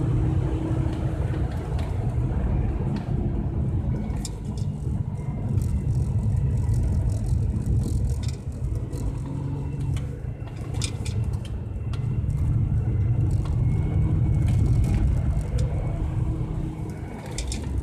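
Volvo car engine heard from inside the cabin, running hard, dropping off briefly about eight and ten seconds in, then building again. Scattered sharp ticks sound over it.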